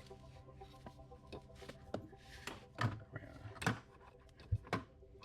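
Hands working a Fast Fid splicing tool into a synthetic winch line: a scatter of short clicks and knocks, irregular and louder in the second half, over a faint steady hum.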